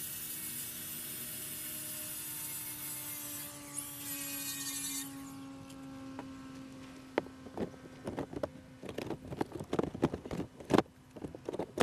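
Makita 18-volt brushless cordless angle grinder running with a steady whine whose pitch sinks slowly. A harsh high grinding noise stops about five seconds in. The last few seconds hold a run of sharp knocks and handling clatter.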